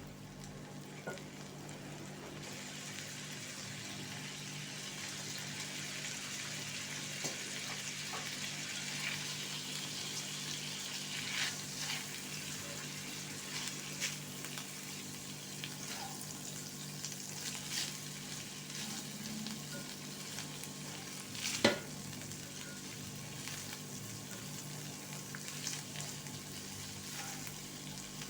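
Food sizzling in hot oil in a pan as it is stir-fried, the sizzle starting up a couple of seconds in and then holding steady. A utensil scrapes and knocks against the pan now and then, with one sharp knock standing out about two-thirds of the way through.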